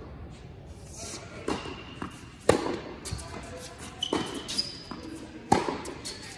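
Tennis ball being struck by rackets and bouncing on an indoor hard court during a doubles rally: sharp pops roughly a second apart, ringing in a large hall, with a few short squeaks in between.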